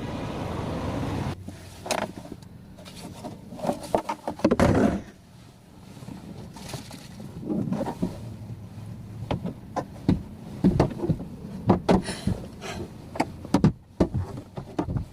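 A steady vehicle-cabin hum that cuts off about a second in, then scattered knocks, clicks and rustling as someone gets into a van and settles things on a lap.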